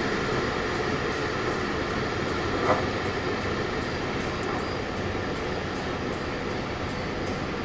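Heavy-haulage truck's diesel engine and road noise running steadily under load, with a brief knock about three seconds in.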